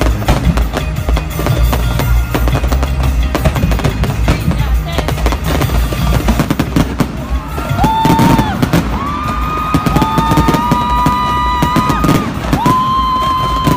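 Fireworks going off: a dense run of crackles and bangs over a low rumble. From about eight seconds in, several long, high, steady tones sound over them.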